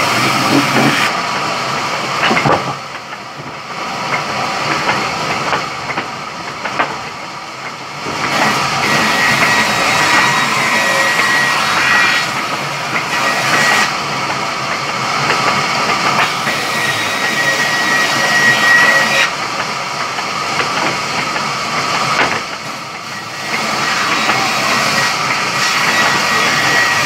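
Sawmill saw running and cutting through a log: a loud, steady mechanical noise with a thin high whine through the middle stretch, dipping briefly twice.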